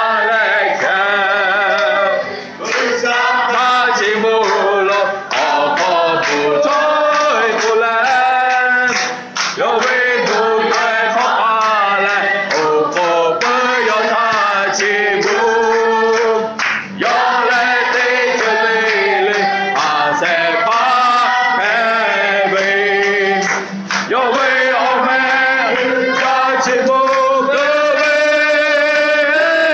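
A congregation of men and women singing a hymn together, with hands clapping along.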